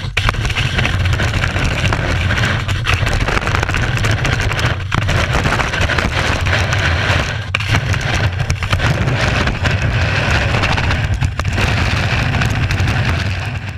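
Ski run heard from an action camera mounted on the ski tip: a steady, loud rumble of wind and vibration on the camera, with the ski hissing and scraping over packed snow and a few brief dips.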